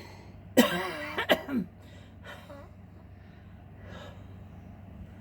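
A person's short, loud vocal outburst, lasting about a second and starting about half a second in, over a steady low hum.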